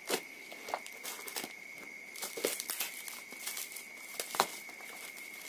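Brown paper wrapping and tape being peeled and torn off a small parcel by hand: irregular crinkling and crackling, with a sharp snap about four seconds in.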